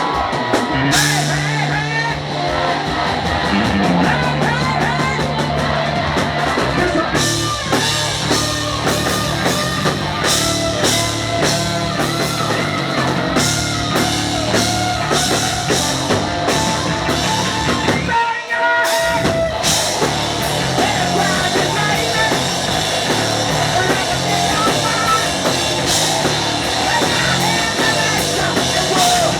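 Live rock band playing loud: held low bass notes under guitar, with the drums coming in on a steady beat a few seconds in. The band cuts out for a moment just past the middle, then comes straight back in.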